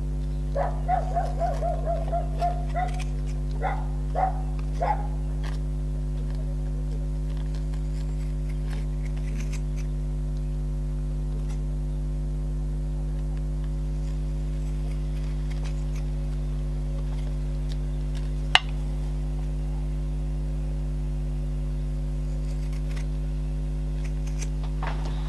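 Steady electrical mains hum throughout, with faint snips of zigzag scissors cutting fabric and a tea bag. A few short high-pitched whines come in the first few seconds, and one sharp click a little past the middle.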